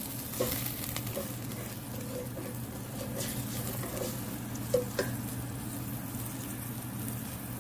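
Green chilli-ginger paste and whole garam masala sizzling in hot oil in a steel pot while a wooden spatula stirs them. The spatula gives a few light scrapes and taps against the pot.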